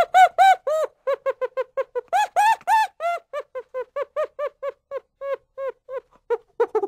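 Chimpanzee calling in a fast run of short hoots that each rise and fall in pitch, about four a second. Twice the hoots turn louder and higher before dropping back.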